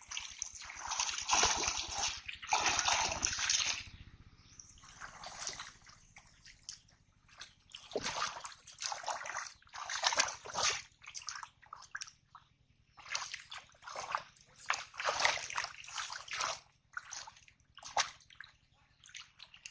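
Shallow muddy water splashing and sloshing in irregular bursts as hands and feet churn through it while groping for fish, with quieter pauses between the bursts.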